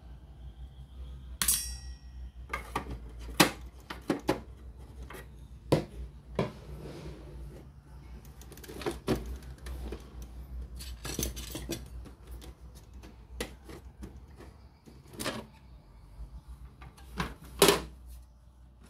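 Small metal parts and tools clinking and knocking during hands-on repair work, in scattered irregular strikes. One clink about a second and a half in rings briefly. A steady low hum runs underneath.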